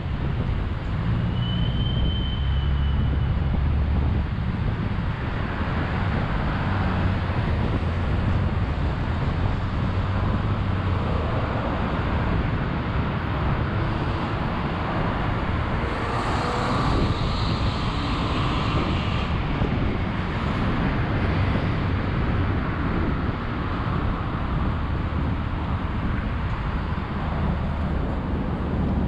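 Steady road traffic noise, a continuous rumble of vehicles on a busy road. A short high tone sounds about two seconds in, and traffic grows louder and brighter for a few seconds around the middle.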